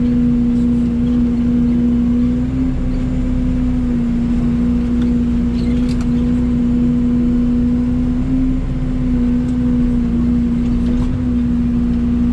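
Mini excavator's diesel engine running steadily at working speed, its pitch lifting slightly twice.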